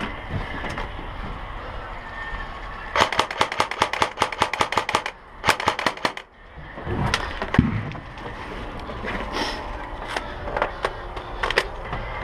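Airsoft guns firing on full auto: two rapid bursts of sharp cracks, about ten shots a second, roughly three and five seconds in. A low thump follows, then a few single shots near the end.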